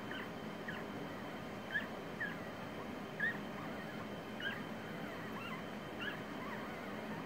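Newborn Havanese puppies squeaking and whimpering, a dozen or so brief high-pitched squeaks scattered irregularly, the loudest about two and three seconds in.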